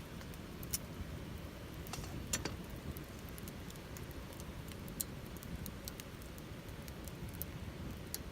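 Campfire wood crackling in a Picogrill fire pit: irregular sharp pops and snaps over a steady low rumble.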